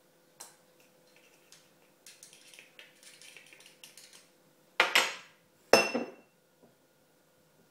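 Metal spoon scraping and rattling inside a small spice jar as powder is dug out, then two sharp clinks of the spoon against a dish about a second apart, the second ringing briefly.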